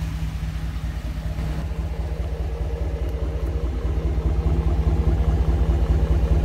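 2017 Ram 1500's 5.7-litre Hemi V8 idling through Carven Competitor mufflers: a steady low exhaust burble with an even pulse, growing a little louder in the second half.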